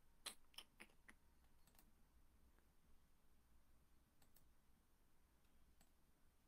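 Near silence with a faint low hum, broken by small sharp clicks: a quick cluster of about six in the first two seconds, then a few scattered ones later.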